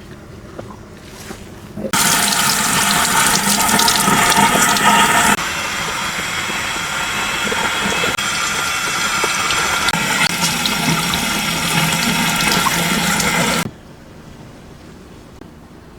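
Water running while hair is rinsed. It comes on suddenly about two seconds in, drops a little in level a few seconds later, and cuts off suddenly near the end.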